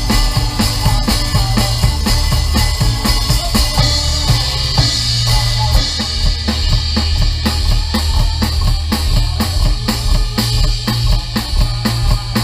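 Live band playing an upbeat worship song, with the drum kit to the fore: kick drum, snare and cymbals keep a steady driving beat over bass and keyboards.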